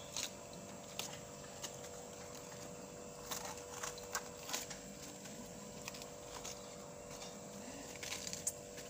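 Hands handling and tearing lettuce leaves at a sink, with a bowl of water: scattered short crisp crackles and taps, more of them in the middle and near the end, over a steady hum.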